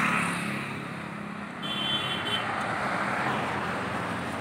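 Road traffic: vehicles passing by, with engine hum and tyre noise that swells again partway through. A brief high thin tone sounds about two seconds in.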